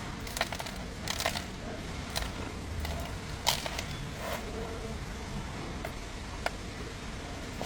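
A handful of sharp clicks and knocks at uneven intervals, heard over a steady low background hum.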